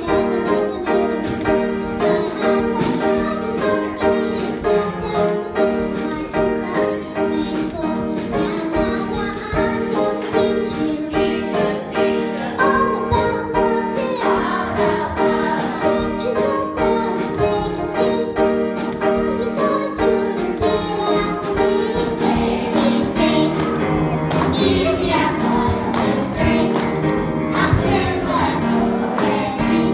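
A group of children singing together over backing music with a steady beat; hand claps join in near the end.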